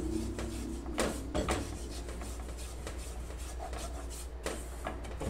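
Red silicone spatula scraping quickly around a nonstick pan, stirring dry powdered milk as it toasts; it is kept moving fast so the powder does not scorch.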